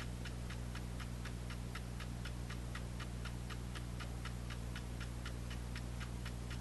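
The clock movement of a SPICA six-transistor AM radio alarm clock ticking steadily, about four ticks a second, while it waits for the set alarm time to switch the radio on. A faint steady low hum lies underneath.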